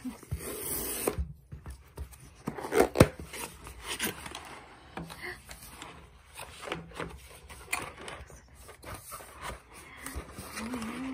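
Cardboard shipping box being opened by hand: the tear strip is ripped off in about the first second, followed by scraping, rustling and knocking of cardboard flaps and the inner tray being handled, with one sharp knock about three seconds in.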